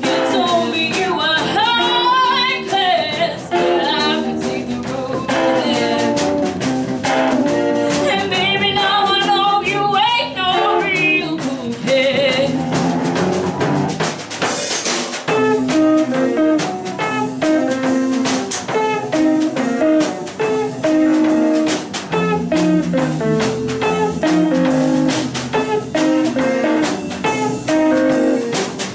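Live rock and roll band playing an instrumental break: an electric guitar solo with bent, wavering notes over drum kit and rhythm guitar, with the band moving to a choppier chordal rhythm about halfway through.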